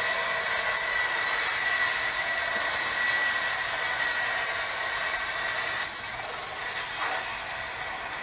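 Turbocharged International diesel pulling tractor running flat out while it drags a weight-transfer sled, a steady high turbo whine over the engine noise. About six seconds in, the sound drops as the throttle comes off at the end of the pull, and near the end a high whistle falls in pitch.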